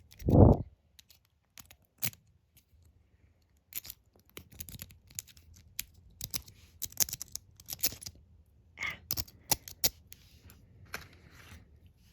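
Lock pick raking in the keyway of a brass Master Lock 140 padlock: irregular small metallic clicks and scrapes as the pins are scrubbed. A dull thump comes about half a second in.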